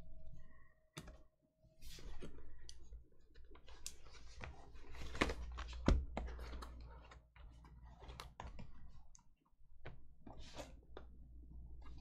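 Trading cards and cardboard hobby boxes being handled and slid across a tabletop mat: irregular soft clicks, taps and rustles.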